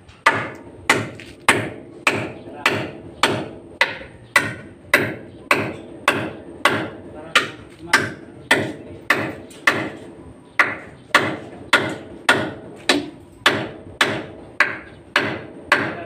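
A hammer striking at a steady, even pace, a little under two blows a second, each blow sharp with a short ring.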